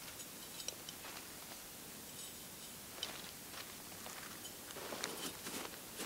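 Faint crunching of snow being scooped and packed by hand into a metal camping pot, with scattered small clicks, getting a little louder near the end.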